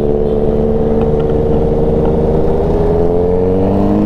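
Motorcycle engines running at a steady cruise, a continuous droning exhaust note whose pitch shifts about three seconds in.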